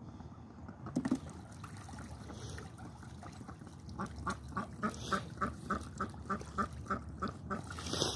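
Domestic duck quacking in a fast, even run of about four quacks a second, starting about four seconds in, after a short louder sound about a second in.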